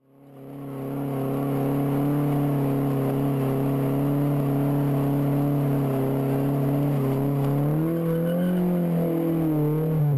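Car engine held at high, steady revs during a burnout, its rear wheels spinning. It fades in and holds one steady note, and the revs rise a little near the end.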